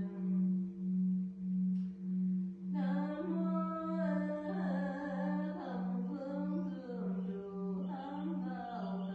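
Deep bronze temple bell hum, a steady low tone swelling and fading in a slow regular pulse, with a voice beginning a slow, wavering sung chant over it about three seconds in.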